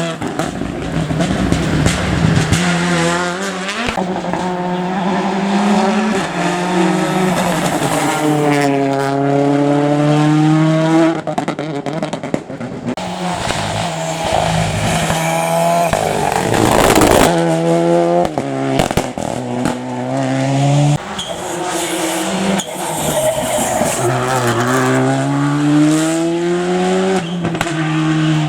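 Rally cars driven flat out on a stage, several passes one after another: engines revving up in long rising sweeps and dropping sharply at each gear change or lift, with some tyre squeal.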